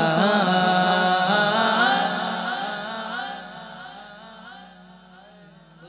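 Unaccompanied male naat singing over a microphone: one long, wavering, ornamented line that fades away over the last few seconds.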